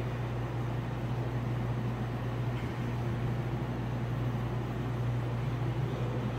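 Steady low hum over a constant background hiss, with no distinct events.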